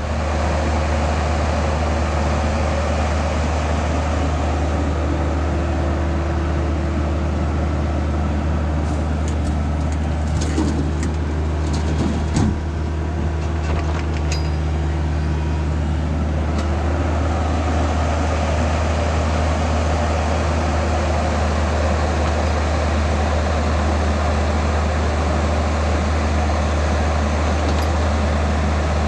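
Bobcat E26 mini excavator's diesel engine running steadily at working speed, with a few short knocks and clanks from the machine about a third of the way in.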